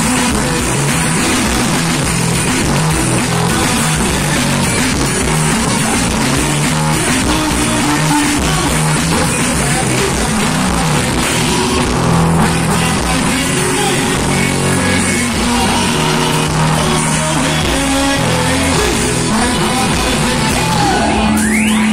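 Live band music played loud through a stage PA: electric guitar, accordion and drum kit, with a male singer on the microphone.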